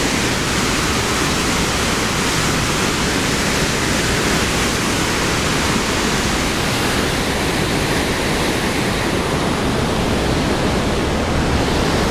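Waterfall plunging into churning whitewater: a loud, steady rush of falling water.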